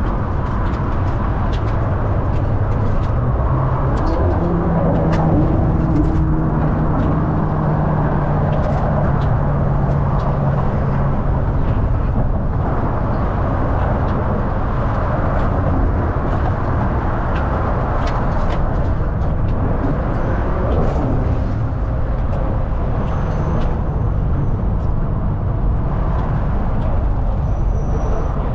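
Double-decker bus in motion, heard from on board: steady engine and road noise with scattered rattles and clicks. A low steady drone joins in about five seconds in and fades out about six seconds later.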